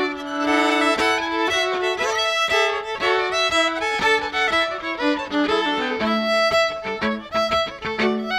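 Two fiddles playing a fiddle tune together, a quick run of bowed notes with no pause.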